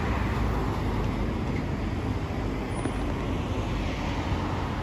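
Steady city road traffic noise: a continuous rumble of cars driving past on the street.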